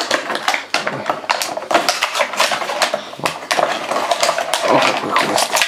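Clear plastic packaging bag crinkling as it is handled and rummaged through, a dense run of irregular crackles.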